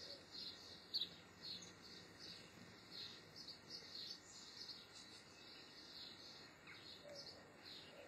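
European goldfinches twittering: a faint, steady run of short high chirps, two or three a second, with one sharp click about a second in.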